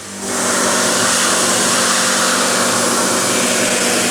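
AVA Evolution P80 pressure washer running with its water jet spraying, switching on right at the start: a steady motor-and-pump hum under a loud hiss of spray.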